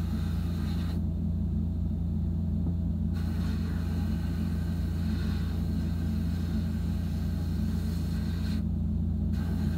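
Abrasive blast cabinet in use on a small metal toy-truck part: the blast gun's hiss cuts off about a second in, comes back about three seconds in, and drops out briefly near the end. A steady low machine hum runs underneath.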